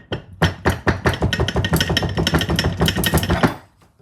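Rapid metal-on-metal knocking, about seven blows a second for some three seconds, with a slight ring, then stopping abruptly: the drive shaft casing of a British Seagull outboard being knocked loose.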